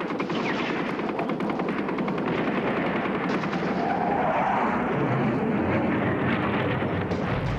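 Heavy gunfire: a dense, continuous din of rapid shots overlapping one another, like automatic weapons firing in battle.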